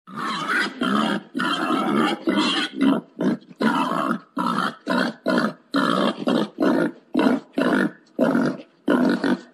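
Wild boar calling in a rapid series of rough grunts and squeals, about two a second with a few longer drawn-out calls; presented as a boar's call when it wants to mate.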